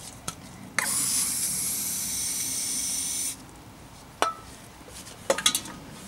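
Aerosol cleaner sprayed in one steady hiss of about two and a half seconds, starting and stopping abruptly, used to clean out a bicycle bottom bracket shell. Then a few sharp clicks near the end.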